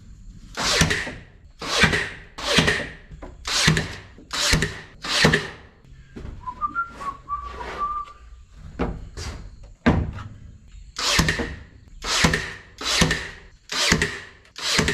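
Rhythmic rasping strokes on wood, about one every two-thirds of a second. They pause midway while a person whistles a few notes, then carry on.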